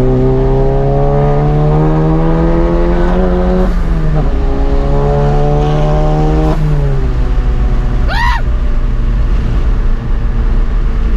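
Tuned turbocharged four-cylinder of a Mk7 Volkswagen Golf GTI pulling hard through a gear, its pitch climbing, then dropping at a shift about three and a half seconds in and climbing through a second pull. After about six and a half seconds it drops back to a steady cruise, with a brief rising-and-falling high sound a little after eight seconds.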